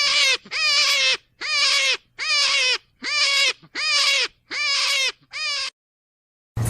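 A rabbit squealing in a series of about eight short, wavering cries, roughly one every three-quarters of a second, which stop shortly before the end. A rasping, rubbing noise starts right at the end.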